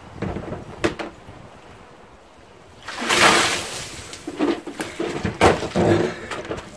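A bucket of cold water dumped over a person, a loud splashing rush about three seconds in, with a few small knocks of the bucket being handled before it.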